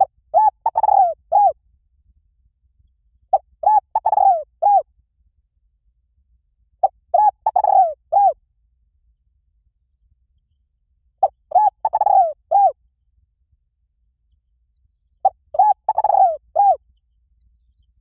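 Spotted dove cooing: five phrases about four seconds apart, each a few quick coos followed by a longer falling croo and a separate final coo.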